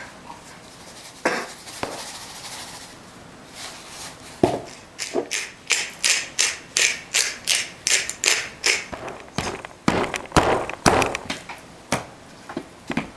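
A quick run of taps and pats, about two or three a second for several seconds, as raw beef short ribs are seasoned and handled by hand on a cutting board.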